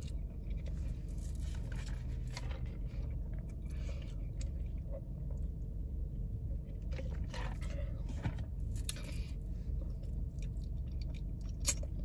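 A person chewing and biting food close to the microphone, with irregular soft crunches and wet mouth sounds. A steady low rumble runs underneath.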